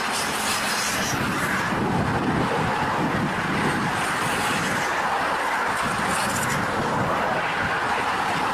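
Steady, even running noise of a moving vehicle, with no break or change in level.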